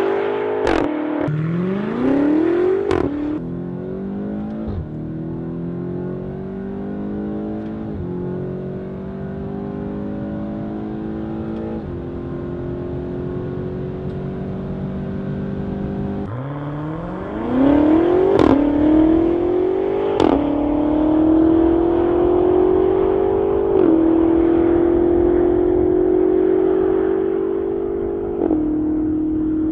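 BMW X5 M (F85) twin-turbo V8 through a Fi Exhaust valved catback with quad tips, accelerating hard: the exhaust note rises with the revs, drops at each upshift with a sharp crack, and climbs again through the gears. The gear pulls get longer as it goes. About halfway through, the note falls low and a second full-throttle run through the gears begins.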